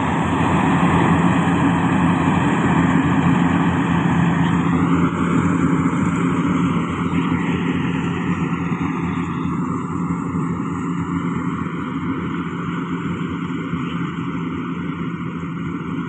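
Yanmar YH700 full-feed combine harvester running, its diesel engine and machinery giving a steady drone; about four and a half seconds in the higher part of the sound shifts, and it then slowly grows quieter.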